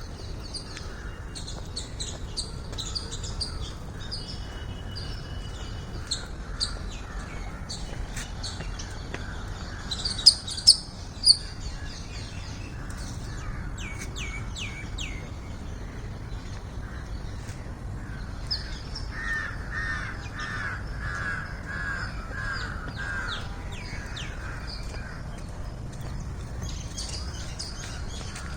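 Outdoor morning birdsong: many small birds chirping in short high notes, with three loud sharp chirps about ten seconds in. About two-thirds through comes a run of about seven quick lower-pitched calls. A steady low rumble runs underneath.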